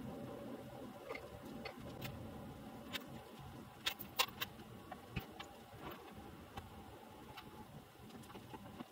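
Irregular light clicks and knocks, a few sharper ones about four seconds in, over a faint low rumble that fades out after the first few seconds.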